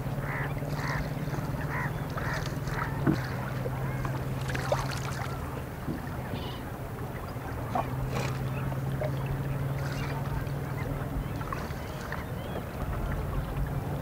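Waterbirds calling: a quick run of short calls in the first three seconds, then scattered calls, over the steady low hum of a boat's motor.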